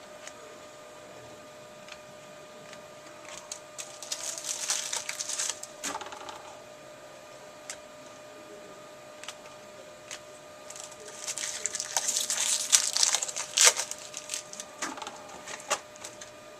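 Foil trading-card pack wrappers crinkling and tearing as packs are opened and cards handled, in two bursts of rustling with sharp clicks, over a faint steady hum.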